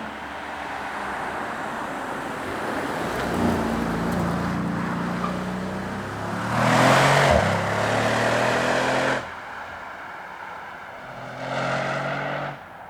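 Mercedes-AMG S63's V8 engine and exhaust revving and accelerating in several short clips. The loudest pull comes about halfway through and cuts off suddenly, and a shorter burst near the end also stops abruptly.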